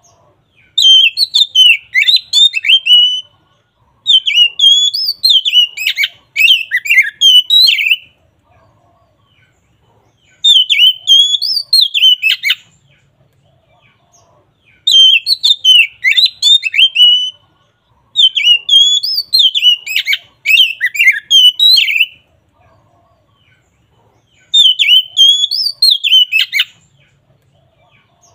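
Oriental magpie-robin (kacer) singing its full, loud 'ngeplong' song: quick, varied whistled phrases in bouts of a few seconds, each followed by a short pause.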